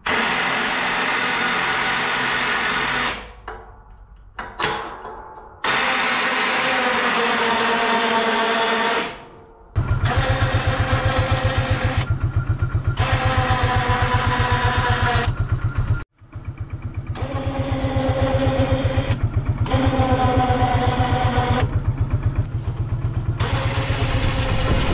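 ATV electric winch motor whining in several short runs, stopping and starting, as the plow-lift winch is worked. From about ten seconds in, the ATV's engine idles underneath with an even pulse while the winch whine keeps cutting in and out.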